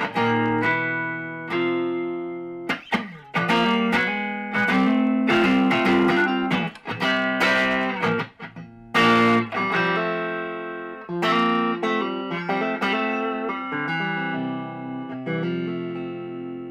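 Amplified electric guitar, an Encore Stratocaster refitted with new pickups and a new wiring loom, strumming chords that are struck every second or so and ring on between strikes.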